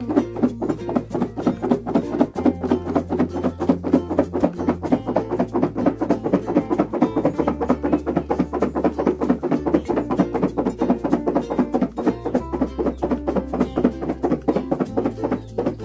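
Liputi berries with salt and sugar knocking about inside a lidded plastic food container that is being shaken hard by hand: a fast, even run of knocks and rattles, done to bruise the fruit. Background music with plucked guitar and a deep bass line plays underneath.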